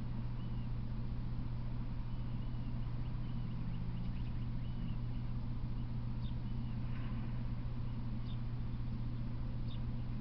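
A steady low hum with a hiss over it, and faint, short bird chirps every now and then, several in the second half.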